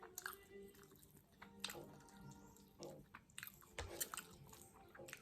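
Close-up eating sounds: quiet chewing with about half a dozen sharp crunchy bites spaced through it.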